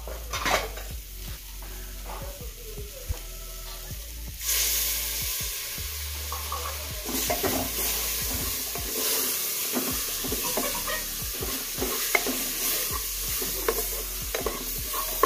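Onion, spice, potato and chicken masala sizzling in an open Hawkins Contura pressure cooker while a spatula stirs and scrapes it against the pot. The sizzle gets much louder about four and a half seconds in, as ground tomato goes into the hot pot.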